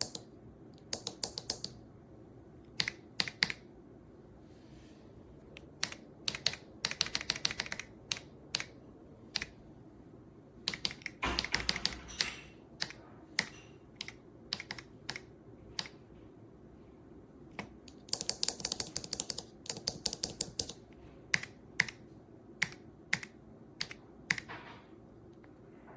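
Typing on a computer keyboard: bursts of quick key clicks with pauses between them, with a few denser runs of keystrokes.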